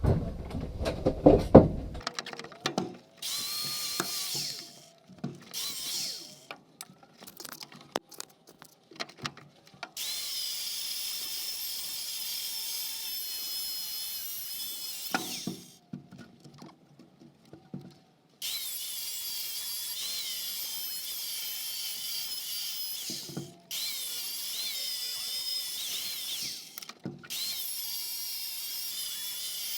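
A small handheld power tool running in several long runs with a steady high-pitched whine and short pauses between them, used to take apart scrap compressor motors. Loud knocks and clatter of metal being handled come in the first two seconds.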